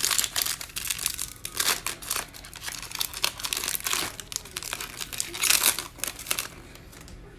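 A foil trading card pack being torn open and crinkled, with the cards slid out and handled; the crackling eases off near the end.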